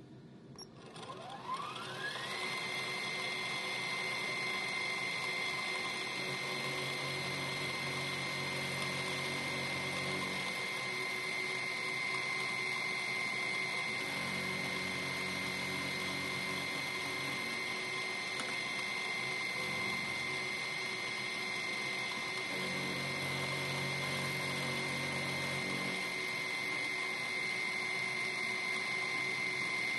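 Milling machine spindle spinning up with a rising whine about two seconds in, then running at a steady high whine while an end mill cuts a brass lathe cross-slide nut. A lower sound comes and goes several times as the cut is taken.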